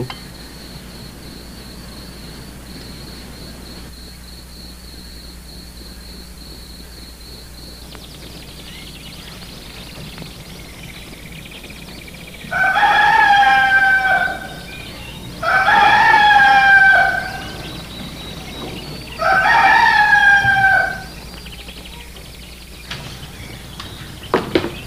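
A rooster crowing three times, each crow about a second and a half long and a couple of seconds apart. Before that, a steady high cricket trill runs and stops about eight seconds in.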